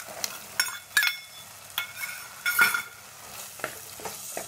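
Boiled brown chickpeas tipped from a steel bowl into a clay pot of frying masala: a series of sharp knocks, several with a brief metallic ring, the loudest about two and a half seconds in. Then a spatula stirring and scraping the chickpeas into the masala over a low sizzle.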